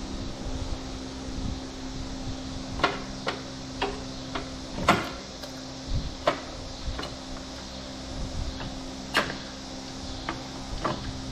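Scattered sharp metallic clinks and knocks, about a dozen, from hand tools and bolts as the stator cover comes off a 2005 Suzuki Boulevard C90's engine. A steady fan hum runs underneath.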